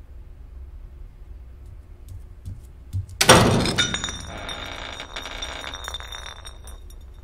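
A milk bottle knocked over by an opening door: a loud clatter as it hits the tile floor about three seconds in, then a few seconds of ringing, clinking rattle as it rolls, dying away.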